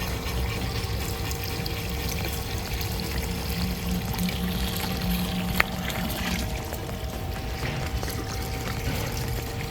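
Water starting to pour and trickle over the tiers of a three-tiered cement fountain, with a steady faint hum underneath. A single sharp click about five and a half seconds in.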